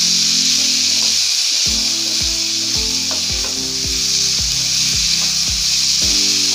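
Chicken pieces and onions sizzling steadily in hot mustard oil in a nonstick frying pan over a medium gas flame, stirred and turned with a wooden spatula. Background music with a steady beat of about two thumps a second comes in underneath after the first couple of seconds.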